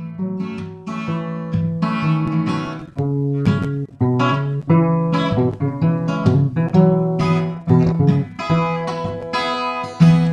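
Background music: acoustic guitar, notes and chords plucked one after another, each ringing and fading.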